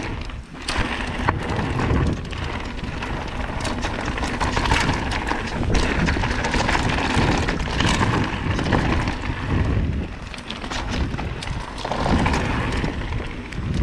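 Mountain bike riding fast over a rough trail: tyres rumbling and crunching over stones and the bike rattling with frequent knocks, with wind buffeting the microphone.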